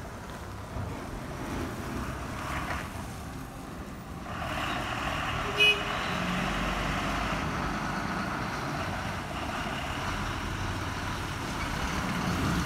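Bus engines and street traffic running at a bus stand, with one short horn toot about five seconds in.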